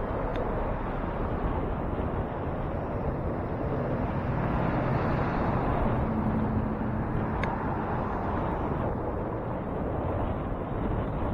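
Steady rushing wind and road noise on the microphone of a bicycle-mounted camera while riding through city streets.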